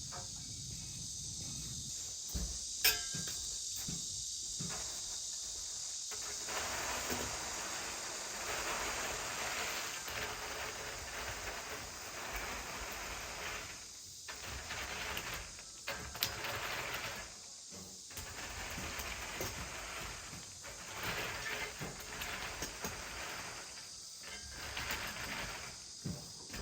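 Irregular rustling and scuffling of leafy plants over a steady high hiss, with one sharp click about three seconds in.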